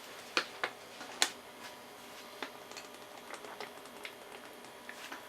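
A few sharp mechanical clicks, the three loudest in the first second and a half, then lighter scattered ticks over a faint steady hum.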